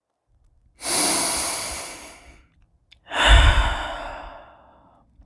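A person breathing heavily: two long, breathy sighs about two seconds apart, each fading away. The second has a low rumble of breath blowing on the microphone.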